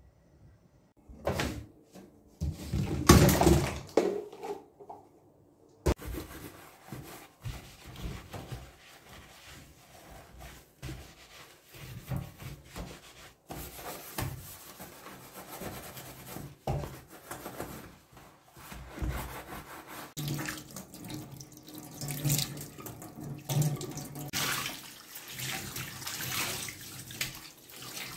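A few loud knocks and handling sounds in the first seconds, then a scouring sponge scrubbing a stainless steel sink. Near the end a tap runs and water splashes into the metal sink.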